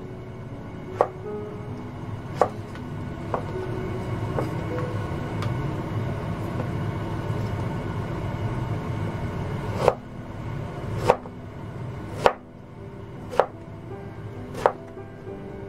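Kitchen knife cutting zucchini on a plastic cutting board: sharp knocks of the blade striking the board, a few spaced out early, then about five more roughly a second apart from about ten seconds in.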